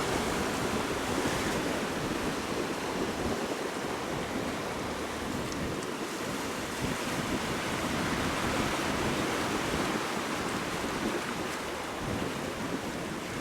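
Sea water rushing and splashing, with wind buffeting the microphone; a steady, even noise.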